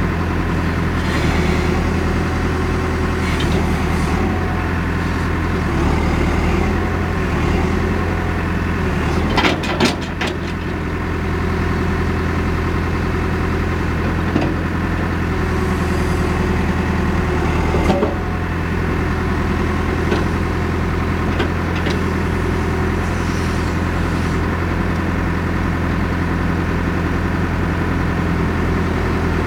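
Caterpillar 430D backhoe loader's diesel engine running steadily, heard from inside the cab, with a few sharp knocks at two points partway through.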